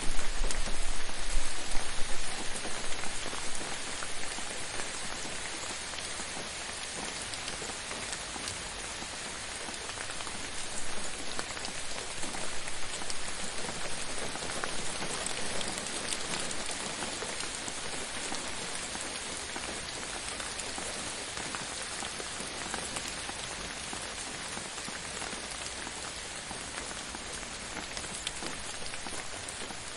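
Gentle, steady rain falling, with individual drops pattering and ticking on a surface. It is louder, with a low rumble, for the first couple of seconds before settling to an even level.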